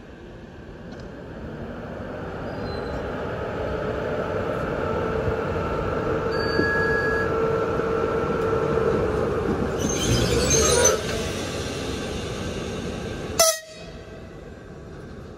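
EP2K electric locomotive running close by with a steady hum that grows louder over about ten seconds. A loud noisy burst comes about ten seconds in. Near the end there is a very short, sharp horn blast.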